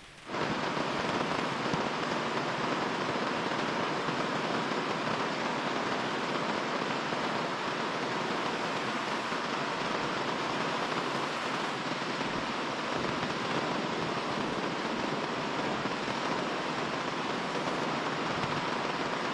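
Steady rain falling in a dense, even hiss, cutting in abruptly a moment after the start.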